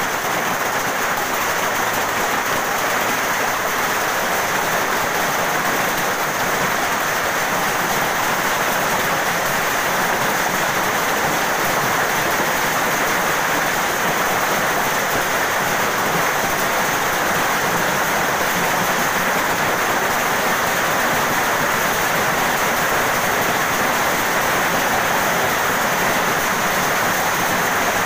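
A heavy hailstorm: hailstones and rain falling hard and steadily, a dense unbroken patter on the ground and surroundings.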